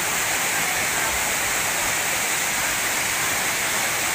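Waterfall with two cascades pouring down a rock face into a pool: a steady, even rush of falling water.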